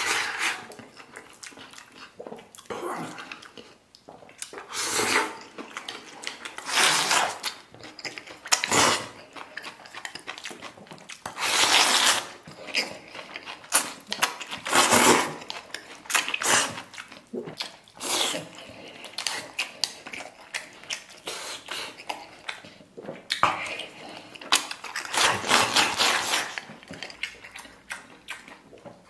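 Close-up eating sounds: chopsticks scraping rice from a porcelain bowl into the mouth, slurps of glass noodles, and chewing, in irregular bursts every second or two.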